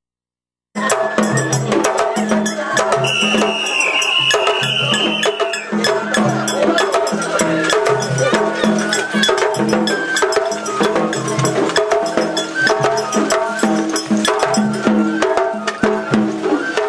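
Japanese festival hayashi music: a steady, rhythmic beat of low drums under many sharp clacking percussion hits. A high flute line is held for a few seconds and then slides down. The sound starts after a brief dropout at the very beginning.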